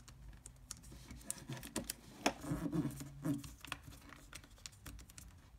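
A thin sheet of origami paper being folded and creased by hand: scattered soft crinkles, ticks and taps as fingers press and slide along the folds.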